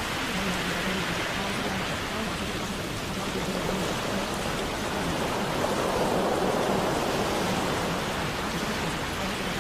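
Steady water noise, such as rain or a running stream, serving as the background track of a subliminal; a faint low hum comes and goes beneath it.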